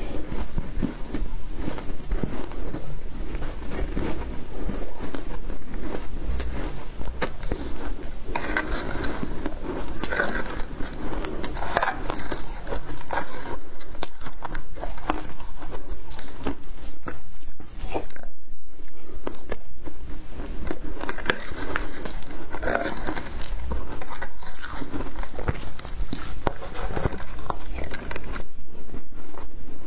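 Someone biting and chewing shaved ice dusted with matcha powder: a dense run of sharp, crisp crunches of ice, with a brief pause just past halfway.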